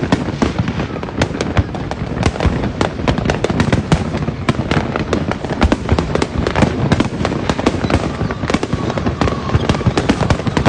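Fireworks and firecrackers going off in a dense, nonstop barrage: rapid, irregular sharp cracks and pops, several a second, over a steady low rumble of bangs.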